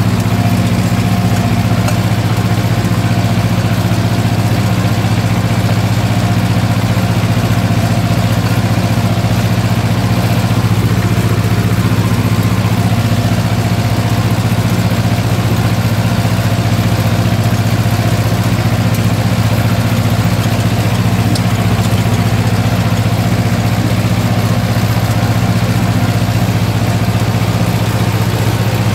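Ursus C-330 tractor's two-cylinder diesel engine running steadily under load while pulling a plough, heard from inside the cab.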